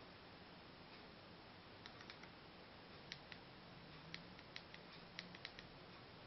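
Faint plastic clicks of remote-control buttons being pressed to step through a menu, a dozen or so starting about two seconds in, closer together near the end, over a steady low hiss.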